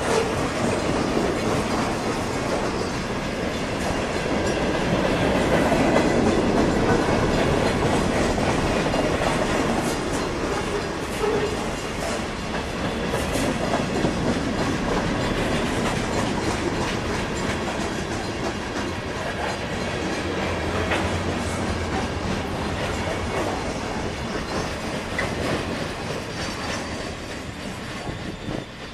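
Freight train cars rolling past: a steady rumble of steel wheels on rail with clickety-clack over the rail joints, growing fainter near the end.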